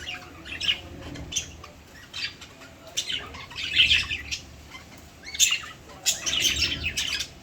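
Lovebirds chirping and squawking: a string of short, shrill calls every second or so, crowding together near the end.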